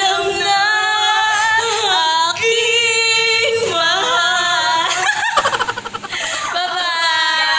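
A woman singing in a high voice, holding wavering notes, with a quick pulsing warble a little past halfway through.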